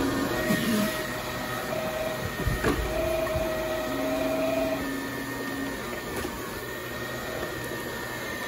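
Floor scrubber running, its rotating scrub brush working across a tiled floor with a steady motor hum and whine whose tones shift in and out. A short knock about two and a half seconds in.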